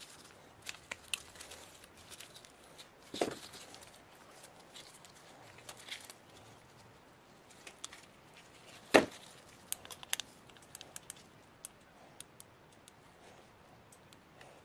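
Pliers and a knife clicking and scraping against a rusted, burnt-out electric motor's stator housing and charred winding leads as it is pried apart. Scattered small clicks and scrapes, with a knock about three seconds in and a sharper, louder knock about nine seconds in.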